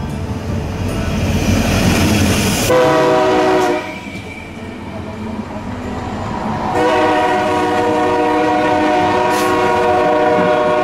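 Diesel freight locomotive passing close, its rumble and wheel noise growing, while it sounds its multi-note air horn: a short blast about three seconds in, then a long held blast from about seven seconds on.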